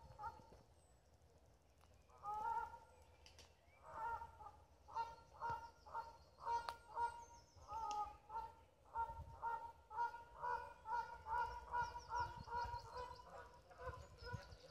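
Geese honking: a couple of calls at first, then from about four seconds in a steady run of short honks, roughly two a second.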